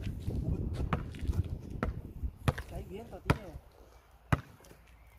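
Basketball being dribbled on an outdoor hard court: five sharp bounces, slow and unevenly spaced, about one a second.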